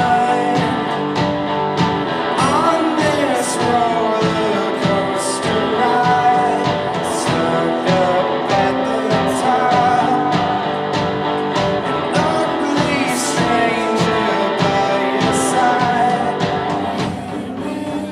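Live punk rock band playing: sung vocals over electric guitars and drums, with cymbal hits about once a second. The music eases slightly near the end.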